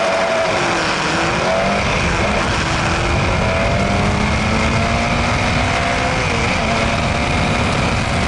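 Open-wheel single-seater race car's engine accelerating hard from a standing start up through the gears. The pitch climbs steadily and falls back at each upshift, the clearest drop about six and a half seconds in. Wind and road noise rush over the onboard microphone.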